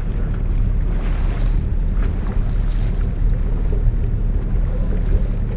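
Fishing boat's engine running steadily under way, a low even hum, with wind buffeting the microphone over it.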